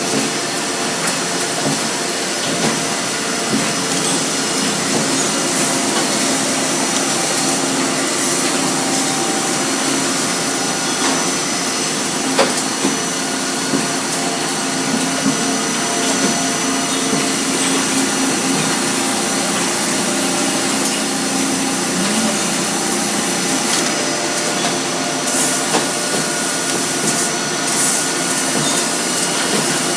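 Industrial machinery of a robotic factory production line running steadily: a loud continuous hiss and whir with several steady tones, dotted with small mechanical clicks.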